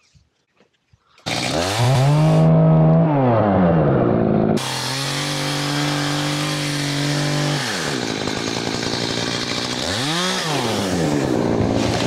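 Gas chainsaw running at high revs, starting suddenly about a second in. Its pitch dips and climbs again a few times as it works through the wood.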